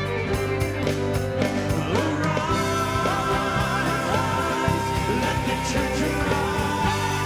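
Live worship band music with a steady beat; a voice starts singing about two and a half seconds in.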